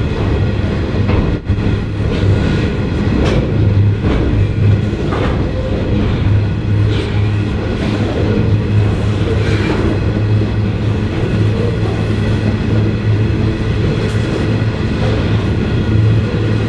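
Freight train of covered hopper wagons rolling past close by: a steady rumble of steel wheels on rail, with a click from the wheels every couple of seconds.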